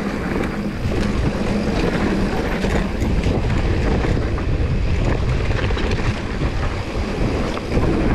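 Mountain bike descending a dry dirt trail: a steady low rumble of wind buffeting the on-bike camera's microphone and knobbly tyres over rough ground, with small rattles and clicks from the bike.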